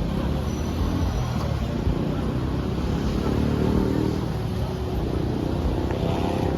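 Road traffic: the steady noise of cars and other vehicles running along a street, with one engine growing louder as it passes about halfway through.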